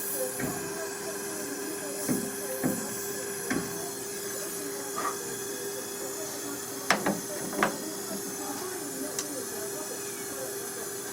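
A steady hiss with a steady hum underneath it, and a handful of short, light knocks or clicks scattered through.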